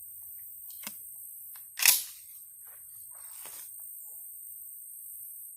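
A single shotgun shot about two seconds in, firing a one-ounce slug, preceded by a sharp click about a second earlier.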